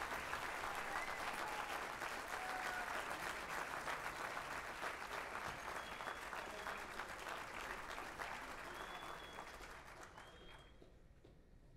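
Audience applauding, dying away over the last few seconds.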